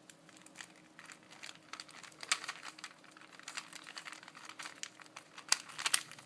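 Plastic Rubik's Cube being turned by hand: a quick, irregular run of clicking and rattling as the layers twist, with a few louder snaps.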